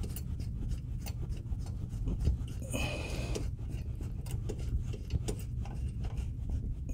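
Hands working the John Deere 3038E's three-point hitch control linkage and adjusting nut: scattered small metallic clicks and a short scraping rub about three seconds in, over a low steady rumble. The linkage is stuck and will not move; the rod bends instead.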